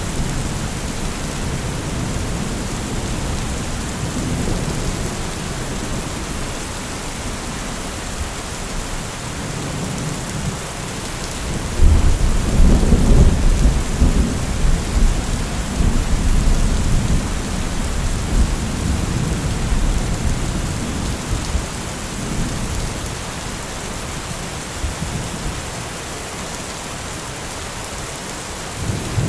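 Thunderstorm: steady heavy rain with low rolling thunder. A loud thunderclap breaks in suddenly about twelve seconds in and rumbles on for several seconds before fading.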